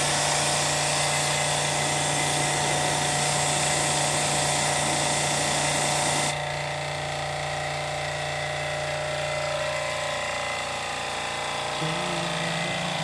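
High-pressure washer spraying water onto an air conditioner's heat exchanger: a steady motor tone under a loud hiss of spray. The spray stops abruptly about six seconds in, while a lower steady hum goes on.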